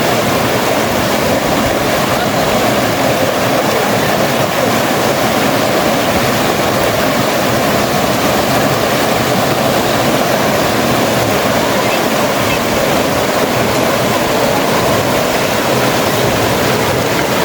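Flowing river water rushing steadily and loudly close by.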